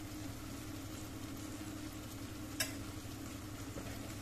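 Potato sabzi sizzling gently in a nonstick kadai on a low flame, over a steady low hum, with a single sharp click of a spoon against the pan about two and a half seconds in as stirring begins.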